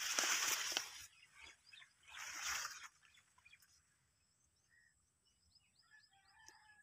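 Plant leaves rustling against the phone twice as it is pushed through the crop, the first time for about a second. Faint bird chirps follow in the second half.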